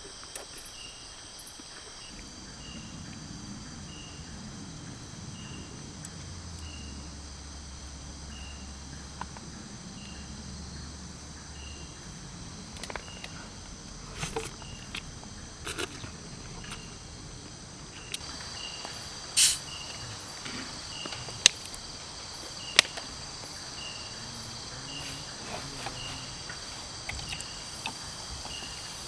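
Insects chirring steadily, with one chirp repeating about once a second, and a few sharp clicks or knocks, the loudest a little after the middle.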